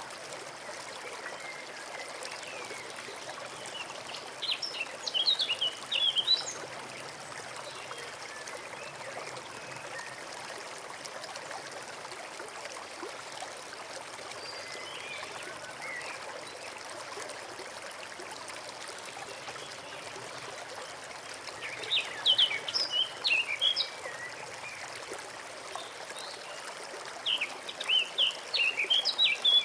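A small forest stream trickling and babbling steadily, with a songbird singing three short bursts of quick, high chirping notes: a few seconds in, again past the middle, and near the end.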